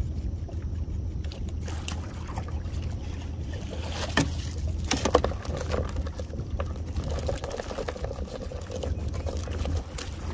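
Small boat's motor running steadily at low speed as the boat creeps along a crab trotline, with a few sharp knocks about four and five seconds in. Near the end comes the splash of a dip net going into the water.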